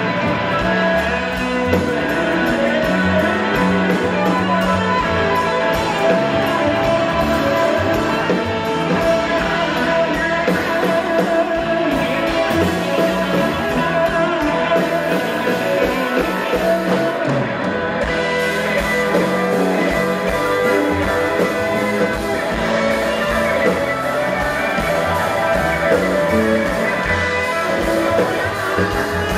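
Live blues-rock band music, with a Hammond XK-3 organ holding steady chords under electric guitar played on a Stratocaster.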